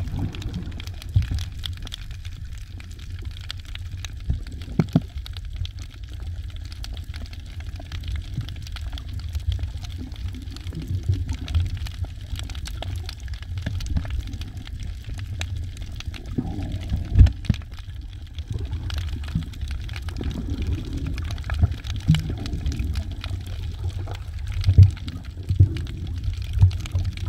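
Water heard through a submerged camera: a steady, muffled low rumble with scattered clicks and crackles, and a few louder knocks about two-thirds of the way in and near the end.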